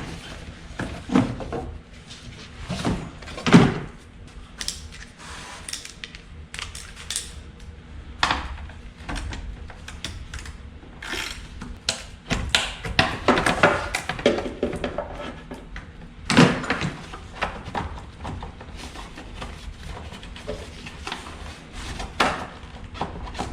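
Irregular knocks, clunks and clicks of hard objects being handled and set down, with a busier run of clattering about halfway through.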